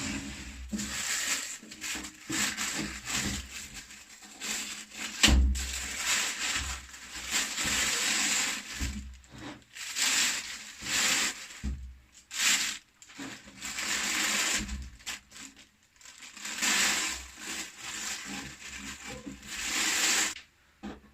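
Plastic packaging crinkling and rustling in irregular surges while being handled and pulled off, with a few dull thumps from handling the boxed amplifier.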